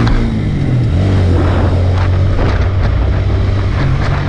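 Honda CBR125's small single-cylinder four-stroke engine running while riding, its revs dropping right at the start and then holding steady, with wind rushing over the helmet-mounted microphone.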